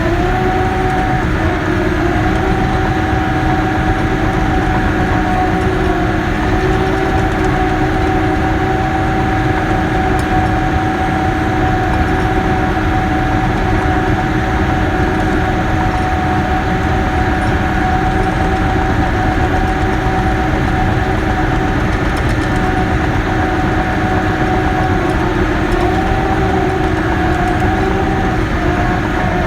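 Cat D6K bulldozer's diesel engine running steadily with a steady whine over it; the pitch wavers slightly near the end.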